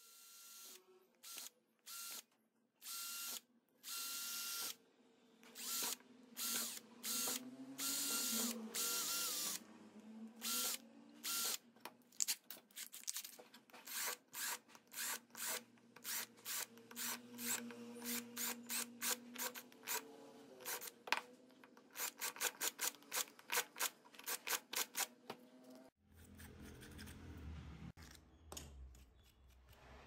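Cordless drill run in short trigger bursts, boring holes through a hand-held disc, with a faint motor whine in each burst. The bursts come in quick succession through the middle and stop a few seconds before the end, giving way to a low rumble.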